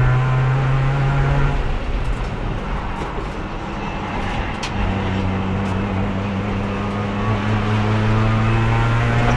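Race car engine heard from onboard, pulling hard, then lifting off about a second and a half in. It stays quieter for a few seconds, then comes back on the throttle about five seconds in, with the engine note rising slowly. The car is held in fourth gear throughout because its worn-out transmission has lost third and won't shift at speed.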